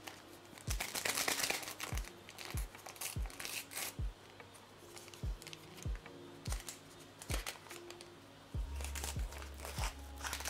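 Background music with a steady deep beat, over crinkling and rustling of packaging that is loudest in the first two seconds and again around the fourth.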